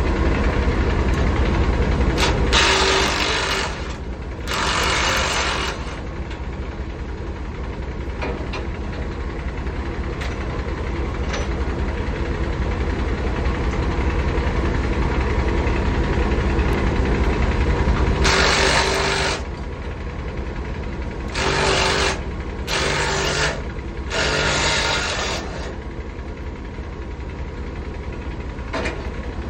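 A heavy truck's diesel engine idles steadily. Six short bursts of a rapid mechanical rattle from a power tool come over it, a pair early on and four more in the second half.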